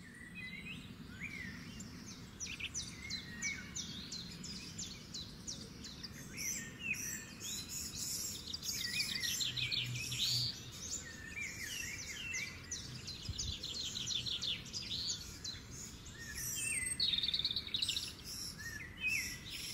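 Birds singing and chirping throughout, with fast runs of repeated notes and short calls coming and going over a faint outdoor hum.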